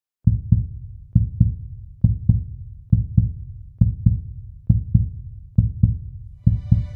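Heartbeat sound effect: paired low thuds, a lub-dub repeating steadily a little faster than once a second. Near the end a sustained music bed of held tones comes in under it.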